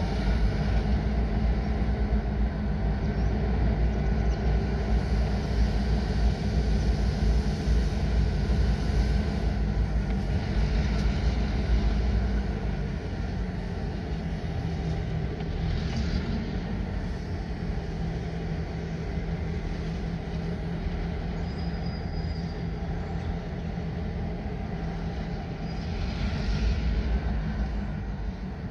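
A pair of diesel locomotives running as they move slowly off down the track, a steady low engine drone that eases a little about halfway through.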